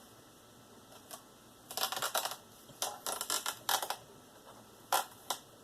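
Laptop parts clicking and tapping as they are handled and pressed back into place during reassembly: a quick run of small hard clicks about two seconds in, another cluster around three to four seconds, and two single taps near the end.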